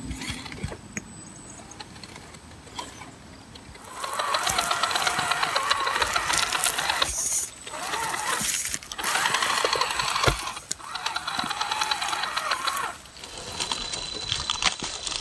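Electric motor and geared drivetrain of a scale RC rock crawler (Vaterra Ascender with SCX10 axles) whining in bursts of throttle as it crawls, with short pauses between the bursts. The first few seconds are quieter, with only light clicks.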